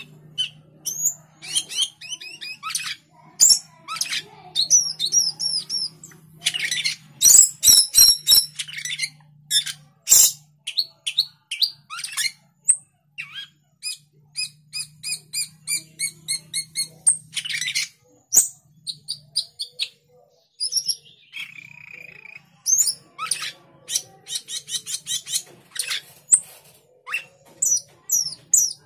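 Male Asian glossy starling calling to a rival: rapid strings of short, sharp chirps and squeaky whistled notes, high-pitched, with brief pauses between bursts.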